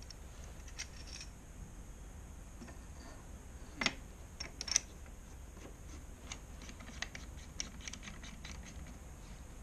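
Scattered light clicks, taps and scrapes of small metal parts being handled on a MIG welding torch, with two sharper clicks near the middle.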